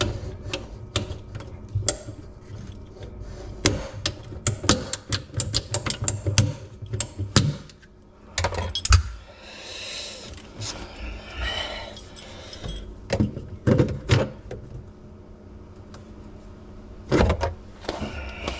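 Hands fitting a white PVC tubular P-trap under a sink: quick clicks, knocks and clatters of the plastic drain pipes and slip nuts being pushed together. The clicking is densest in the first eight seconds, with a stretch of rustling near the middle and a few more knocks later.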